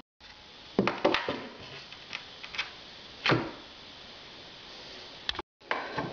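Tools being handled and set down on a benchtop: a string of short knocks and clatters, the loudest about a second in and in the middle.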